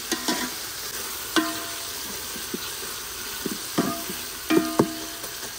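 Onion, tomato and ginger-garlic masala sizzling in a metal cooking pot while it is stirred. A metal utensil knocks against the pot again and again, each knock ringing briefly.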